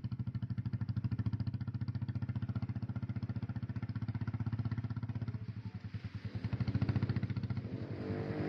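Yamaha Mio GT scooter's single-cylinder four-stroke engine idling through a short Pro Liner aftermarket muffler fitted with a dB killer (silencer insert): a steady, even putter at the exhaust tip. It dips briefly about five seconds in and swells again about a second later.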